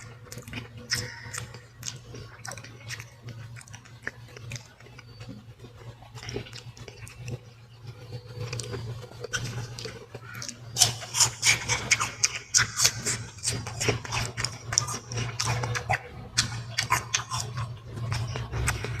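Close-miked chewing and biting of fruit: rapid irregular mouth clicks that grow louder and denser about eleven seconds in, over a low steady hum.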